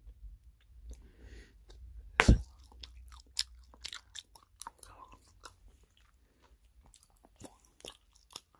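Bubble gum (Dubble Bubble cherry gum balls) being chewed with the mouth close to the microphone: irregular wet smacks and clicks, with one much louder smack about two seconds in.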